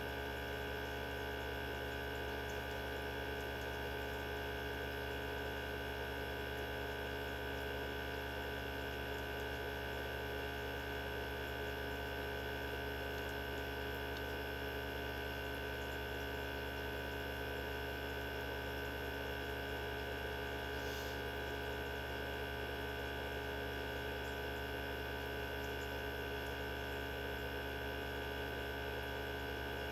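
Mini benchtop centrifuge running at a steady speed, its motor giving a constant hum and whine made of several steady tones, while it spins small tubes of cow blood to separate the blood's components.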